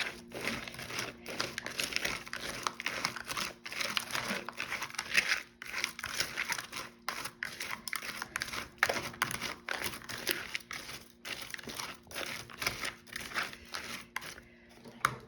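Dry Lucky Charms cereal being stirred into melted marshmallow, giving a busy, irregular crackling as the pieces are folded through the sticky mixture. It dies down near the end.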